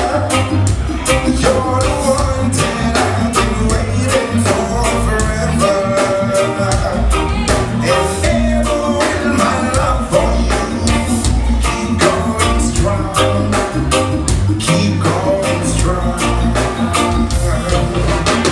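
Band music with a steady drum beat.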